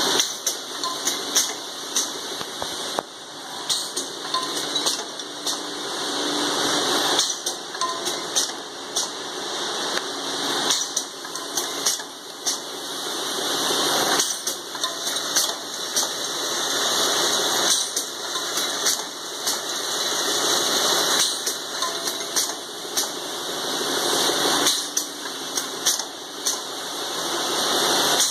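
Automatic drilling machine running through its cycle: a vibratory bowl feeder rattles small metal parts steadily, with sharp metallic clicks as parts feed and the rotary table indexes. The noise swells and then drops off about every three and a half seconds as each part is drilled.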